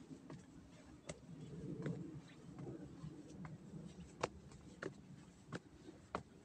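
Footsteps of a hiker walking up a trail: sharp steps about every two-thirds of a second over a low, steady rumble.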